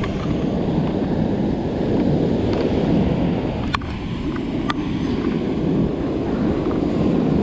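Steady wind rumble on the microphone mixed with beach surf, with two short sharp clicks about a second apart near the middle.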